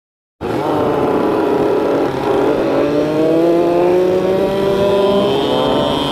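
Motor scooter engine pulling under acceleration, its pitch climbing steadily, with a short drop in pitch about five seconds in. It cuts in suddenly after half a second of silence.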